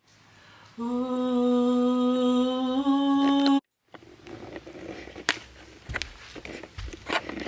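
A voice holding one steady hummed note for about three seconds, stepping up slightly in pitch just before it cuts off abruptly. Then rustling and light clicks from the camera being handled.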